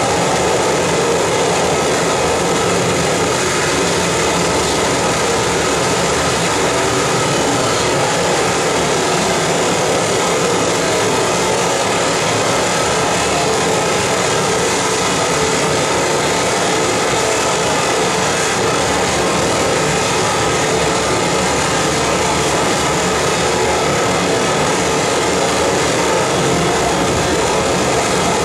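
Harsh noise wall from a live electronic noise rig of effects pedals: a dense, unchanging wall of noise from low rumble to high hiss, held at a constant loud level.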